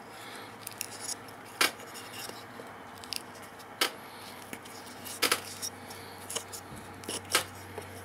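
Metal vine eye being twisted by hand into a small wooden block: irregular sharp clicks and creaks as the screw thread bites into the wood and fingers handle the block, over a faint steady low hum.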